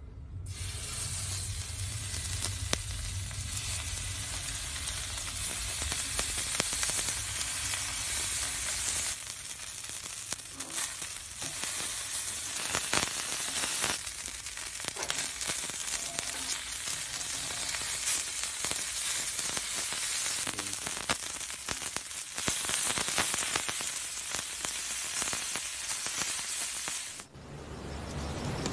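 Cubes of marbled beef searing on a hot flat-top griddle: a steady sizzle full of small crackles and pops. The sizzle cuts off suddenly shortly before the end.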